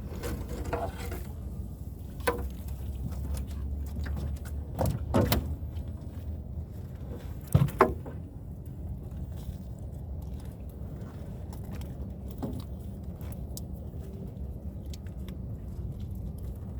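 Scattered knocks and clatter aboard a small fishing boat over a steady low rumble, with the loudest thumps about five and eight seconds in.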